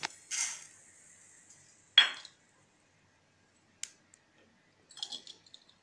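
Urad dal poured from a small bowl into a dry metal pan, the grains rushing in briefly. About two seconds in comes a single sharp ringing clink, the loudest sound. A faint tick and a few light rattling clicks follow near the end.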